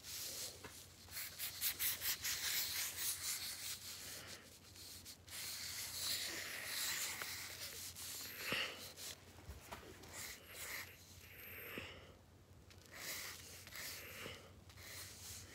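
Scribbling on paper: quick rubbing strokes of a drawing tool, dense and fast in the first few seconds, then more scattered.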